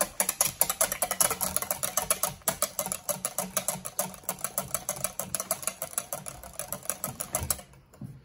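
Wire whisk beating a butter-and-oil mixture in a glass bowl: a fast, even clicking of the wires against the glass, pausing briefly near the end.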